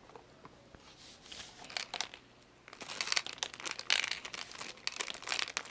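A plastic candy wrapper crinkling in the hands, with sparse clicks at first, then a dense, louder run of rustles and clicks from about halfway through as candies are shaken out of it into a plastic toy cement mixer drum.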